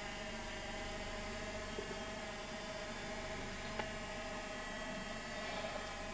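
Steady electrical hum with a faint whine above it, and a single click about four seconds in.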